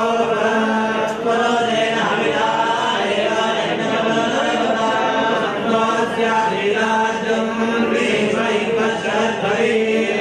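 Steady, unbroken chanting of Sanskrit mantras by voices reciting on a held pitch, the accompaniment to a temple puja's ritual bathing of the deities.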